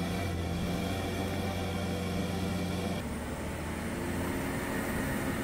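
SUV engine running under load as the bogged vehicle tries to drive out of deep mud on recovery boards. About three seconds in the engine note changes to a higher, steady pitch.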